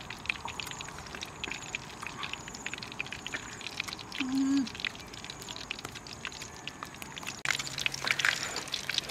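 Light crackling over a faint outdoor background, with a short low call about four seconds in; about seven and a half seconds in, hot oil in a wok starts sizzling loudly around frying fish.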